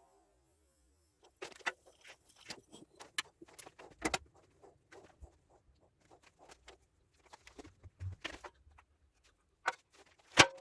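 Irregular metallic clinks, taps and knocks from metal objects being handled, with one loud sharp knock near the end.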